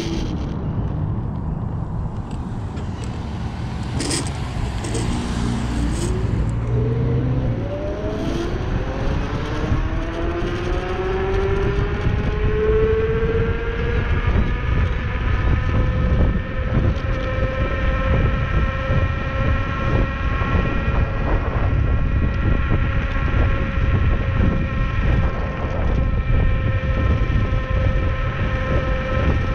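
Scooter's motor running, its pitch falling as it slows at the start, then rising steadily over about ten seconds as it speeds up and holding level at cruising speed. Wind rumbles on the camera's microphone throughout, with a few knocks about four to six seconds in.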